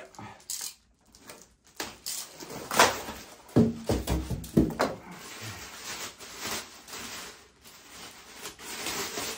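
Stretch-film plastic wrapping crinkling and rustling in irregular bursts as a wrapped metal part is pulled out and handled, with a couple of dull knocks about halfway through.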